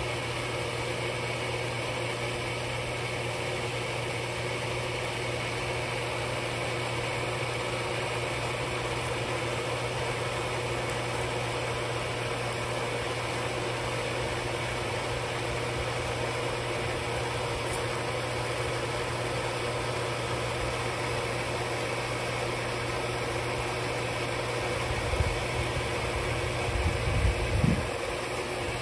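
Pool pump motor running with a steady hum. A few low thumps near the end.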